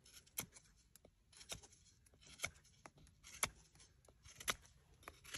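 Puukko bushcraft knife cutting into the end of a wooden stick to blunt it: short, crisp cuts about once a second, faint, with a few smaller clicks between them.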